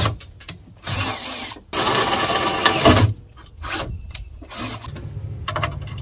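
Power drill with a gold drill bit boring a bolt hole through the truck's sheet-metal radiator support, running in several short bursts of about a second each with pauses between, and a few clicks near the end.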